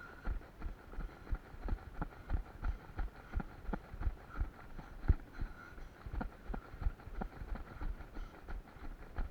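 A runner's footsteps thudding at a steady running pace, about three strides a second.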